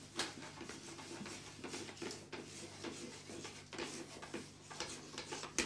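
Several people writing on handheld answer boards: irregular scratching pen strokes, with a sharper tap just after the start and another near the end, over a faint steady hum.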